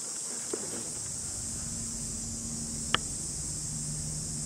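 Steady high-pitched drone of insects, with one sharp click about three seconds in and a faint low hum joining partway through.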